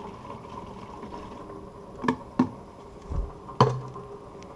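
Degreaser draining from an upturned plastic bottle into a plastic jerrycan, then a few sharp plastic clicks and knocks and a dull thump from about two seconds in as the bottle is handled.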